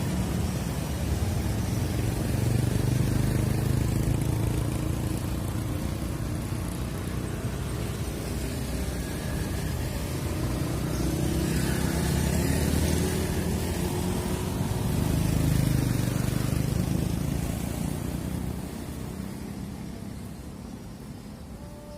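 Road traffic passing: a low rumble that swells and fades several times as vehicles go by, dying away near the end.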